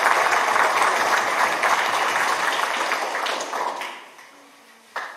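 Audience applauding, a crowd of people clapping, which fades out about four seconds in, followed by a single sharp knock near the end.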